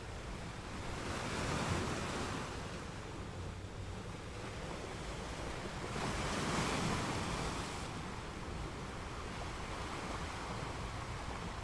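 Gentle ocean waves breaking and washing onto a sand beach, two waves swelling up, one about a second and a half in and another around six to seven seconds in, over a steady surf hiss.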